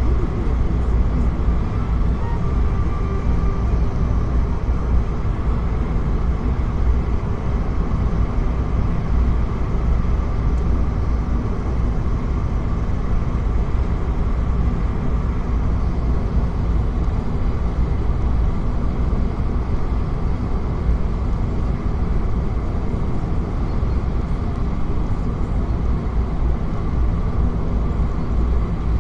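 A car driving at a steady speed: a constant low rumble of engine and road noise that holds level throughout.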